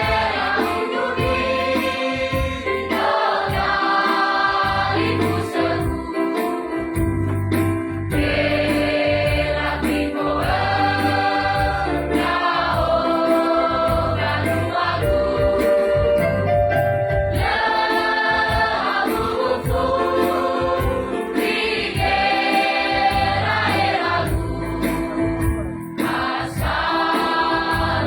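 A choir singing in phrases a few seconds long, over a steady low bass accompaniment and a regular high ticking beat.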